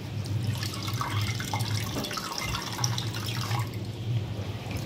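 Ginger juice trickling and dripping into a steel bowl as a cloth bag of ginger paste is squeezed by hand, with small wet splashes over a steady low hum.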